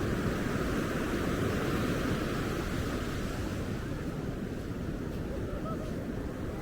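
Ocean surf washing ashore in a steady rush, with wind buffeting the microphone; the rush of the surf eases a little about halfway through.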